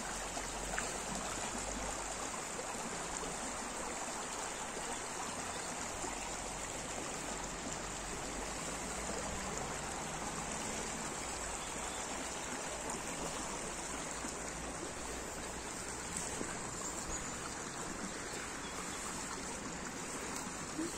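Shallow brook running over a stony bed: a steady, even rush of flowing water.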